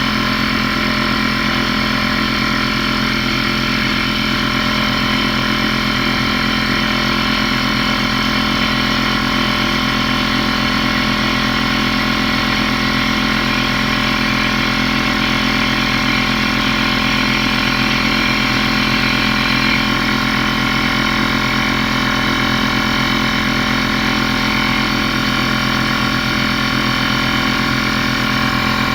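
Porter-Cable pancake air compressor's oil-free pump and motor running steadily, building pressure in the tank.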